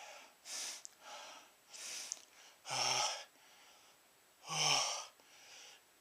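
A man's short, uneven breaths, with two louder voiced gasps about three and five seconds in: the catching breaths that build up to a sneeze, brought on by snuffing chhinkni sneezing powder.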